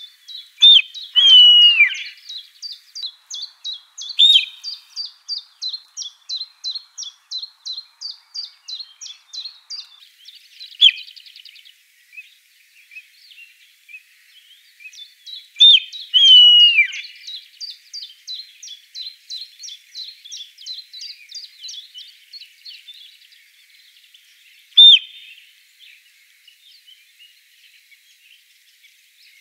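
Sika deer stag whistling: about seven sharp, high whistles several seconds apart, some brief and some drawn out and dropping in pitch at the end. Behind them a bird repeats short high chirps about three times a second.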